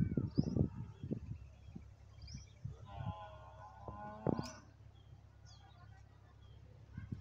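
Small birds chirping, with a few low thumps in the first second. One drawn-out, wavering animal call comes about three seconds in, followed by a sharp click.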